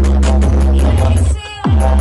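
Bass-heavy funk (pancadão) track blasting from a competition sound trailer's speaker wall: a dense, steady bass under fast hi-hat ticks. About a second and a half in, the bass cuts out briefly under a falling pitch sweep, then slams back in.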